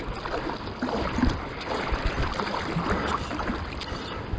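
Shallow seawater sloshing and lapping at the shore, with small irregular splashes.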